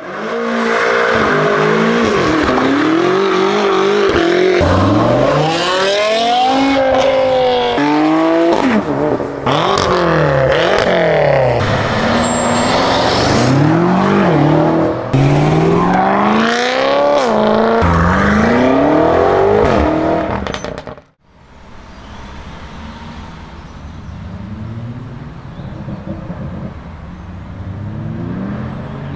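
Performance BMW M car engines with aftermarket exhausts, one after another, revving hard and accelerating through gear changes, the pitch climbing and dropping again and again, with abrupt switches between cars. A little past two-thirds of the way in, the sound drops off to a quieter engine, which starts to rev up near the end.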